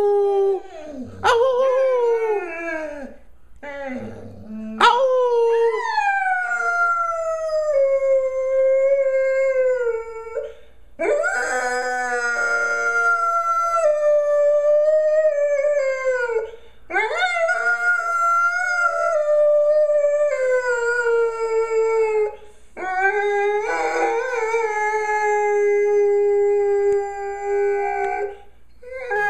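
Golden retriever howling with a toy bone held in its mouth. It gives three short howls, then four long ones, each rising at the start and slowly falling in pitch.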